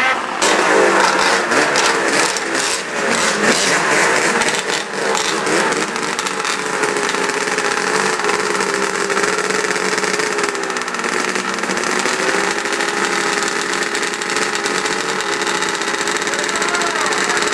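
Race snowmobile engines idling and being revved, the pitch rising and falling unevenly for the first few seconds, then running steadily.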